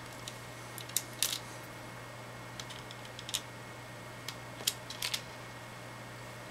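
Scattered light clicks and taps of small machine screws and fingertips against the tablet's opened chassis while screws are handled for refitting, over a steady low hum.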